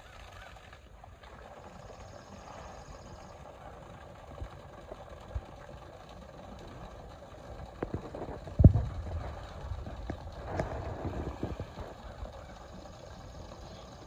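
Pond water splashing and sloshing as a Syrian brown bear moves and swims in it, with several sudden thumps, the loudest about eight and a half seconds in.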